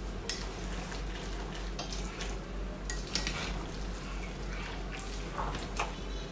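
Spaghetti being stirred through a thick carbonara sauce in a stainless steel pot: the utensil scrapes and knocks against the pot in scattered short clicks, over a faint steady sizzle of the simmering sauce.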